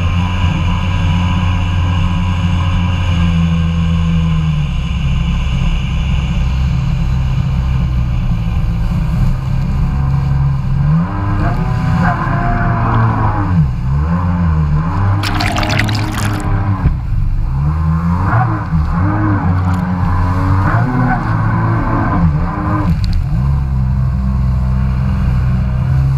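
Kawasaki Ultra 150 jet ski's two-stroke three-cylinder engine running at a steady cruise, then its pitch rising and falling again and again as the throttle is worked through turns. A short burst of splashing about halfway through.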